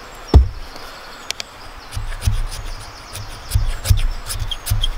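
A single sharp knock, then a knife's back edge scraped repeatedly down a ferrocerium rod, about two to three strikes a second, each a short rasp with a dull thud, throwing sparks onto fatwood shavings. The knife is not throwing sparks well.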